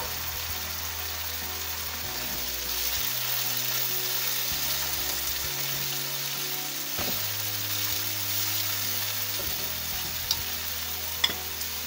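Finely chopped onions sizzling in a frying pan with a splash of white wine cooking off, stirred with a silicone spatula. Two light clicks near the end.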